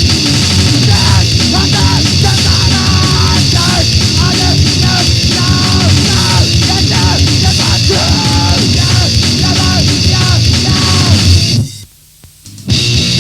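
Grindcore/power-violence band recording played at full tilt: distorted guitar, bass and drums. It stops dead for about a second near the end, then crashes back in.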